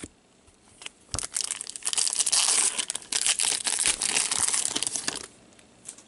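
Foil wrapper of a 2015-16 Upper Deck Series 2 hockey card pack crinkling and tearing as gloved hands rip it open and peel it off the cards, for about four seconds.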